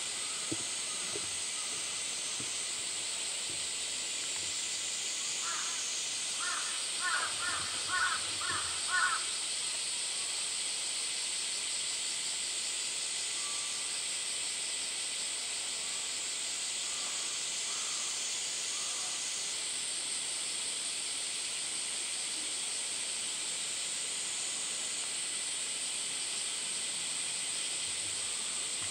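A bird calling about six times in quick succession, over a steady high hiss.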